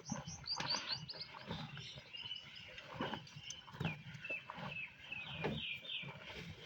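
Water buffalo tearing and chewing fresh green grass in irregular crunches, while small birds chirp in runs of quick high notes.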